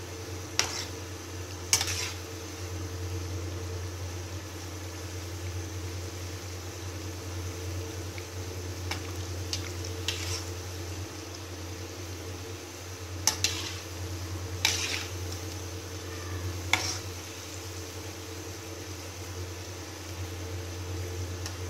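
Yeast donuts deep-frying in a pan of hot oil, sizzling steadily over a low hum. A handful of sharp knocks come from a slotted metal spatula striking the pan as the donuts are stirred and turned.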